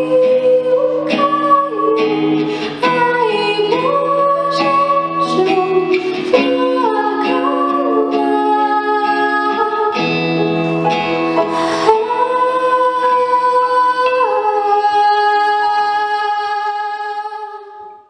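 A girl singing a song solo into a microphone over an instrumental accompaniment, ending on a long held note that fades out near the end.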